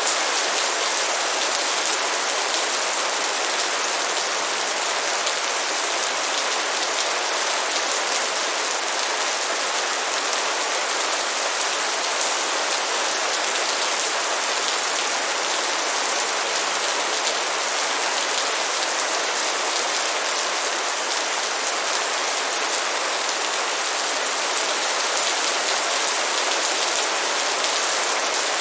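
Steady light rain, an even hiss with fine drop patter that holds level throughout.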